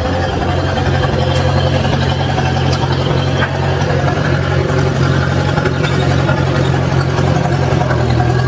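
Old Massey Ferguson backhoe's engine running at a steady speed, with no revving.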